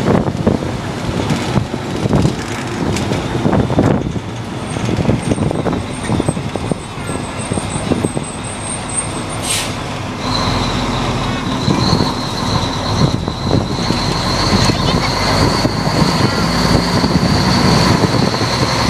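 Vintage open-cab fire truck driving along a street, heard from its open hose bed: steady engine and road noise. About halfway through, a steady high whine joins in.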